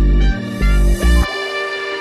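Electronic background music: three heavy bass hits over the first second or so, then the bass drops out, leaving held notes ringing on.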